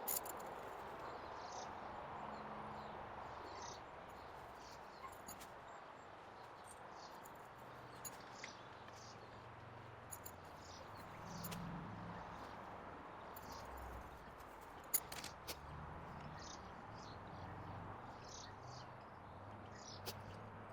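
Quiet outdoor ambience: scattered faint chirps of insects or birds over a low, uneven hum, with a few sharp clicks, the loudest about fifteen seconds in.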